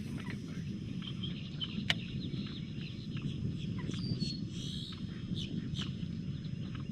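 Wild birds calling, many short chirps and clucking notes from several birds, over a steady low rumble.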